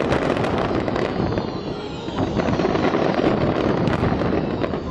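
Aerial fireworks going off in a rapid, continuous barrage of booms and crackles.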